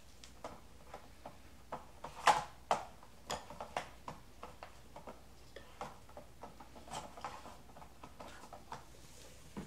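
Puppy eating from a plastic Aikiou puzzle feeder bowl: irregular clicks and clacks of the plastic compartments and food as it noses them, with the two loudest knocks a little over two seconds in.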